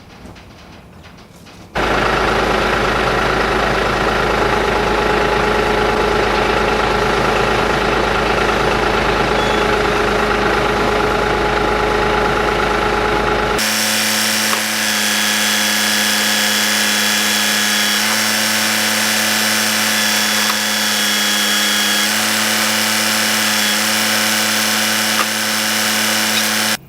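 Loud, steady machinery running: a noisy engine-like drone that starts suddenly, then switches abruptly about halfway to a steadier, more tonal engine note that shifts slightly in pitch a few times, and cuts off sharply at the end.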